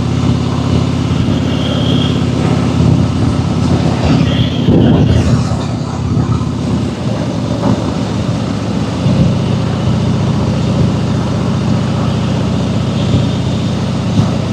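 Harley-Davidson Fat Boy V-twin engine running under way at cruising speed, heard through the rider's clip-on microphone. The engine note eases for a few seconds midway, then picks up again.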